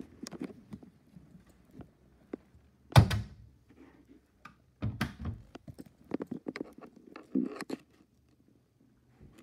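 Cupboard doors being handled: a loud thunk about three seconds in, then several smaller knocks and clicks.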